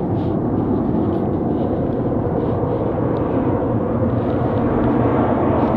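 Airbus A310 twin-engine jet airliner on approach, its engine noise heard from the ground as a steady low drone.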